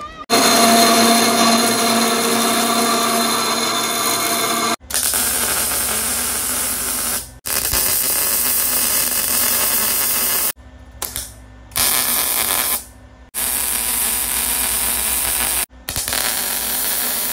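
Power-tool work in several short takes cut one after another, each a loud, steady run of noise that starts and stops abruptly.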